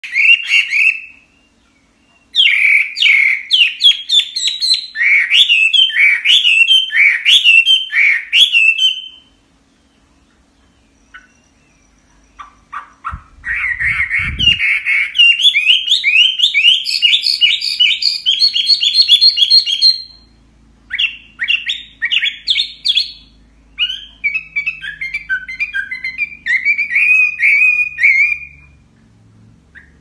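Chinese hwamei singing: loud, fast runs of repeated, sliding whistled notes in long phrases, broken by short pauses of one to three seconds.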